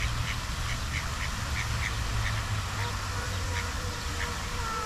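Ducks quacking in a quick run of short calls, thinning out later, over a steady low background rumble.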